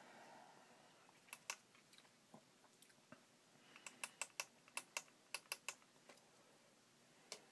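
Quiet, sharp clicks and taps of small hard objects: two about a second and a half in, a quick irregular run of about ten in the middle, and one more near the end.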